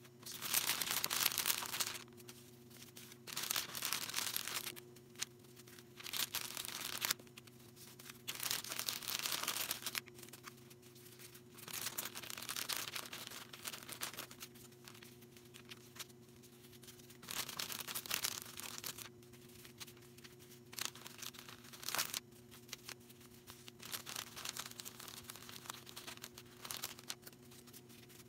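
Packing materials handled and torn in about nine separate bursts of tearing and crinkling, each one to two seconds long, over a steady low electrical hum.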